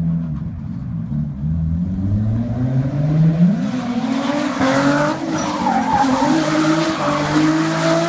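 A car drifting: the engine is revving hard and the tyres squeal and skid. The engine note climbs about three seconds in and then holds high while the tyre squeal grows.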